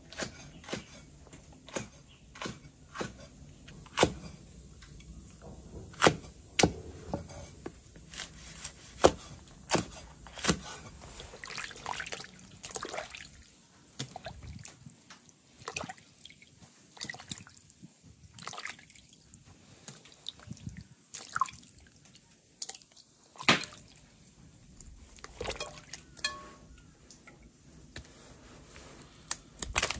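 Irregular sharp knocks of a cleaver striking a wooden chopping board, followed by water dripping and splashing as hands rinse soaked pieces of dried fish in a basin.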